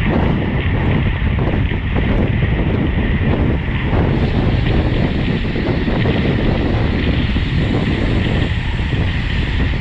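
Steady wind noise buffeting the microphone of a camera carried on a bicycle riding at road-race speed.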